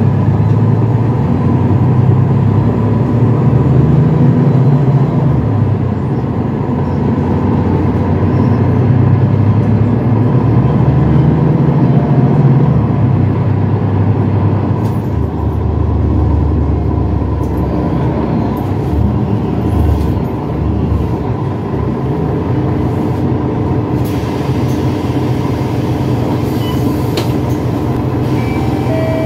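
Mercedes-Benz Citaro city bus's diesel engine and drivetrain heard from inside the passenger cabin, a low drone that swells as the bus pulls away and eases off later, with light rattles from the cabin fittings.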